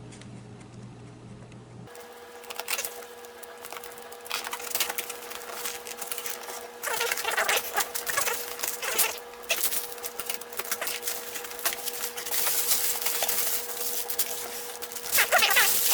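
Packaging rustling and crinkling as a parcel is opened and its contents unwrapped by hand, in quick irregular scratches and crackles, over a faint steady hum.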